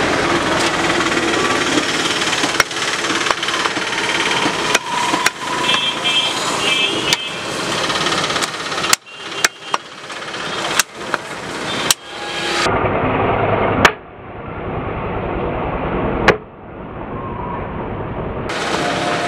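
Cleaver chopping goat meat on a wooden log chopping block: sharp single chops at irregular intervals, roughly one a second, over a steady background of street traffic.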